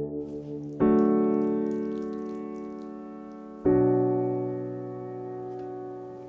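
Background piano music: slow chords, a new chord struck about a second in and another about halfway through, each left to ring and fade.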